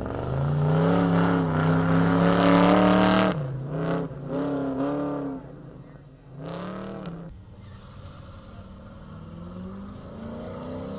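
Autocross car engine pulling hard at high revs, then lifting off sharply after about three seconds. It follows with a run of short rev rises and falls as the car works through the cones. Near the end a fainter engine climbs slowly in pitch.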